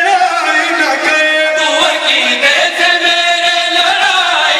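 A man chanting verses in long, held melodic lines through a public-address system.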